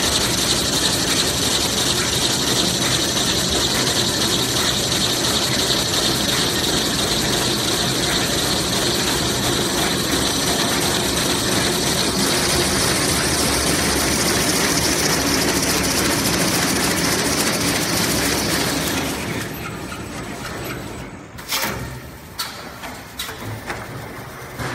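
Semi-automatic toilet paper rewinding machine running, a steady mechanical noise. About 19 s in it falls quieter, and a few sharp knocks follow near the end.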